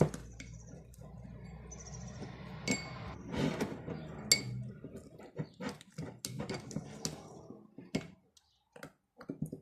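Slime being pressed and kneaded by hand, giving an irregular run of sharp clicks and small pops.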